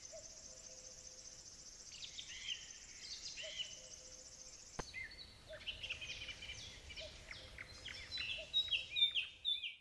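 Birds chirping and calling, short quick chirps that grow busier and louder in the second half, with a single click near the middle.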